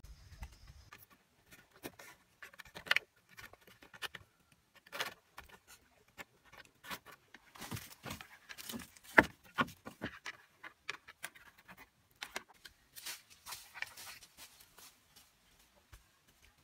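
Scattered knocks, snaps and crunching rustles from bamboo poles being handled and fitted on a lashed frame, and from feet on dry leaf litter, with one sharper knock about nine seconds in.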